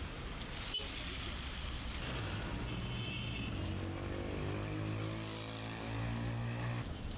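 Street traffic with a motor vehicle's engine running close by: a steady low hum that sets in about two seconds in and cuts off suddenly near the end. A single sharp click comes about a second in.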